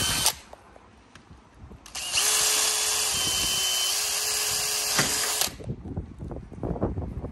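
DeWalt 18V XR cordless drill boring pilot holes through a uPVC window frame: one run stops just after the start, and a second steady run with a constant motor whine goes from about two seconds in to about five and a half seconds in. Light knocks and handling noise follow.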